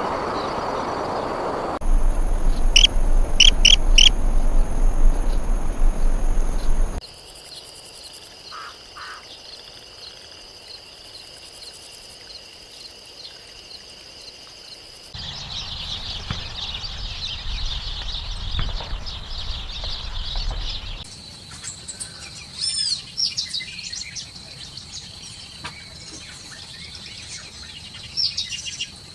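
Wild birds chirping and singing in short, quick calls and glides, over a steady high drone of insects. The recording changes abruptly several times, and a low rumble lies under the first few seconds.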